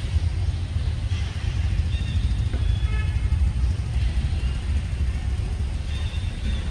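Steady low rumble of outdoor background noise, with faint high chirping calls about two to three seconds in and again near the end.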